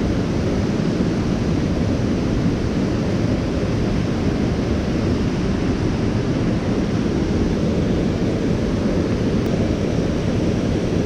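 Swollen creek rushing steadily in high water; the river is blown out from heavy rain.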